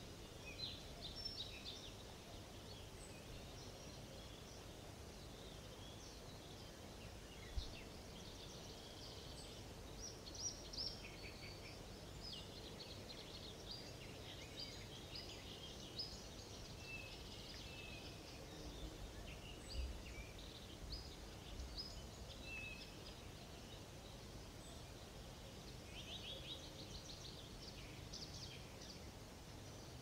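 Several small songbirds chirping and trilling, many short high phrases scattered throughout, over a faint steady background hiss. A couple of soft low thumps come about a third of the way in and again past the middle.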